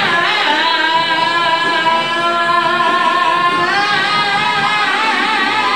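A man singing live with band accompaniment, holding one long high note for about four seconds before the melody moves on.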